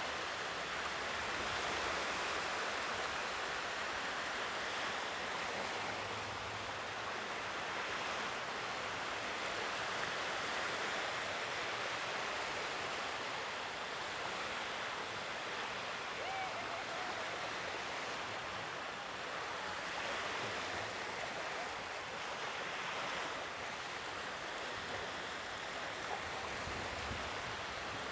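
Sea waves washing onto the shore in a steady hiss that swells gently and eases, with some wind on the microphone.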